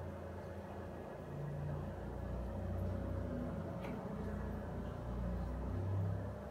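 Steady low hum and rumble of running aquarium equipment: the air pump feeding a bubbling air stone and the tank's filter.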